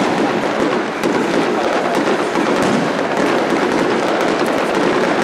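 Fireworks going off: a dense, continuous crackling and popping of many small bursts at a steady level, with no single big bang standing out.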